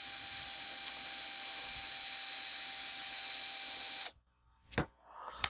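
Power drill motor running at a steady speed, driving a threaded part of a small metal lathe home, then cutting off suddenly about four seconds in. A couple of light clicks follow near the end.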